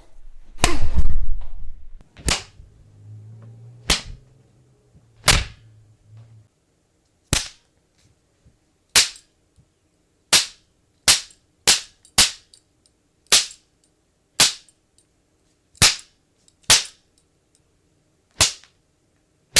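Foley punch sound effects: a series of separate sharp, snappy hits, about one a second, some in quick pairs. One heavier blow near the start has a deep low thud after it.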